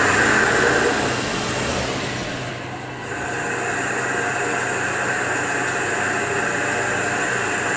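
Tormach CNC lathe running a facing cut at full feed, the chuck spinning and flood coolant spraying against the guard window: a steady machine hum with a hiss. It dips briefly about two seconds in, then steadies.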